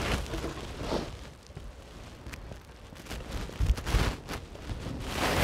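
Polyhive roof being handled and lowered back onto the hive: scattered knocks and rustles, with a low thump as it settles about four seconds in.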